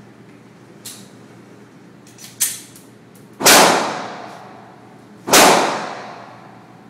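Two handgun shots about two seconds apart, each followed by a long echo off the walls of an indoor range. A shorter, quieter crack comes about a second before the first shot.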